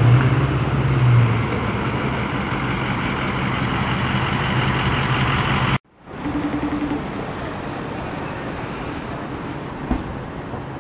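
A vehicle engine idling steadily under street traffic noise. About six seconds in the sound cuts off abruptly, and a quieter steady traffic hum follows, with a single sharp knock near the end.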